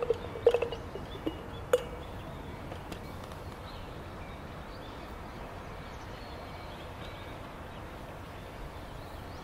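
A wooden pestle knocking against the bottom of a glass mason jar while crushing fennel seeds: about five sharp glassy clinks in the first two seconds, then only a steady faint background hiss.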